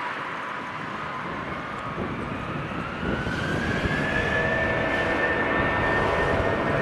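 Airbus A319's IAE V2500 jet engines spooling up for the takeoff roll: a whine rises in pitch from about two seconds in and then holds steady and high over a jet rumble that grows louder.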